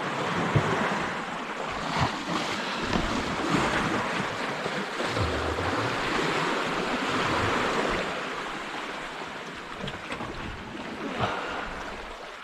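Sea surf washing over a rocky shore, swelling and easing, with wind buffeting the microphone and a few short knocks.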